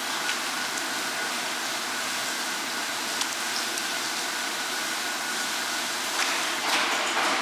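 Steady rushing hiss of a steaming hot-water vat used to boil Ise hanpei fish cakes, with a faint machine hum under it and splashing water getting louder in the last second or so as the cakes are lifted out.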